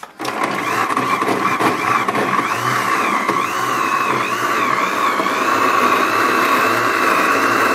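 Electric blender switched on, its motor running loud and steady as it chops betel leaves in water. About two seconds in, the motor's whine starts to wobble up and down, then holds steady for the last couple of seconds.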